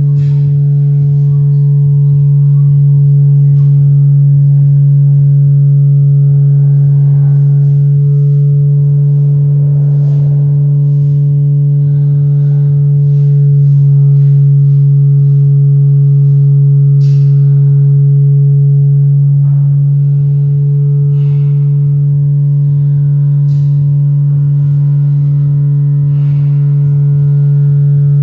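Loud, steady low drone held on one pitch, with a few overtones above it, from a live experimental sound accompaniment; it dips briefly about halfway through. Faint clicks and rustles are scattered over it.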